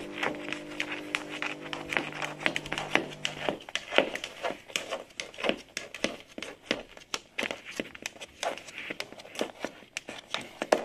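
A tortoise's claws clicking and scraping on a hard wooden floor close to the microphone, a rapid, irregular run of sharp taps and scratches.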